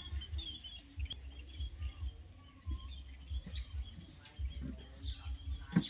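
High-pitched animal chirps and squeaks, with a few quick rising whistled calls in the second half, over a low uneven rumble.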